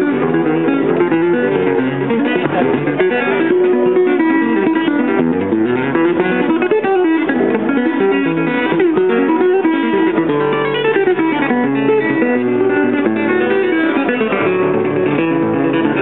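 Acoustic guitar played fingerstyle: a flowing melody of quick plucked notes over moving bass notes.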